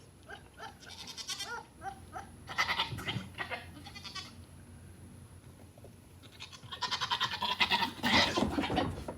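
Goats calling: a run of short, rising bleats about three a second, then louder, rough, noisy bursts about two and a half seconds in and again for the last few seconds.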